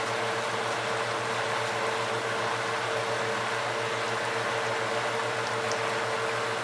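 Steady kitchen noise: an even hiss with a constant hum and a held tone, like an exhaust fan running over the stove while the pan of chicken cooks.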